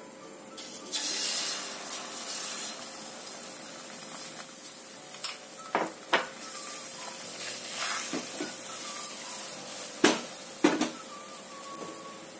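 Beaten egg frying in hot oil in a nonstick wok: a sizzle that jumps up about a second in as the egg hits the oil and then carries on steadily. Several sharp clicks against the pan come twice around six seconds and twice around ten seconds.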